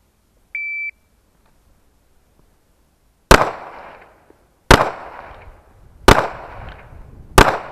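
An electronic shot timer beeps once, then about three seconds later a Smith & Wesson M&P 9 mm pistol fires four single shots about a second and a half apart, each with a short decaying tail.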